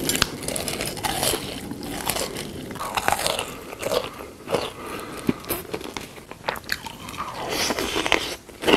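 Close-miked eating sounds: repeated crisp bites and crunches of crunchy food, with chewing between them.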